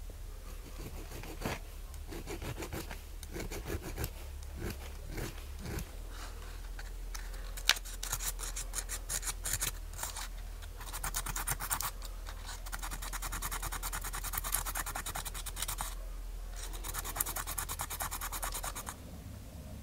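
A small needle file scraping against the edge of a metal coin, first in short separate strokes, then in quicker, denser spells of scraping that break off twice. One sharp click near the middle stands out as the loudest sound.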